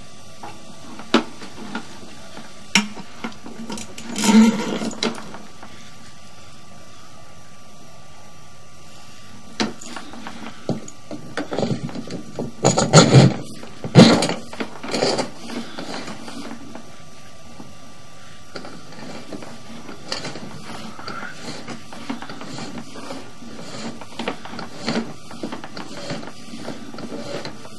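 Sewer inspection camera's push cable being fed off its reel into the drain line: scattered clicks and knocks, with louder clattering bursts about four seconds in and again from about twelve to fifteen seconds, over a faint steady tone.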